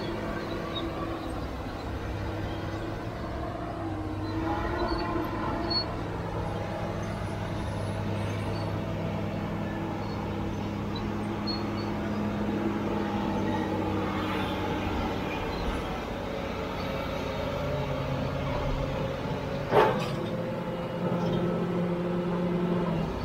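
CAT D7G crawler bulldozer's diesel engine running under load while it pushes a large boulder with its blade, the pitch of the engine shifting a few times. Near the end there is a single sharp knock, the loudest sound.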